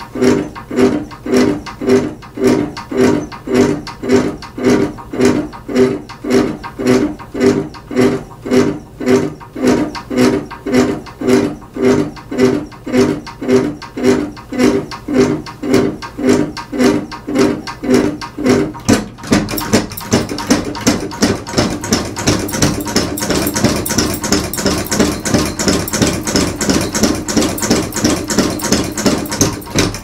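Severely out-of-balance ceiling fan, its three blades all fitted on one side, wobbling hard and making a loud rhythmic noise with each turn, about two pulses a second. About 19 seconds in it speeds up: the pulses come faster and a higher hiss joins them.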